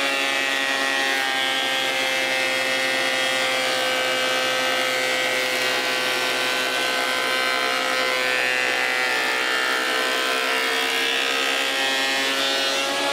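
Scheppach HMS1070 planer-thicknesser running as a 150 mm pine board is surface-planed across its two-knife cutter block: a steady, loud motor whine over the hiss of the cut, its pitch dipping slightly midway through the pass.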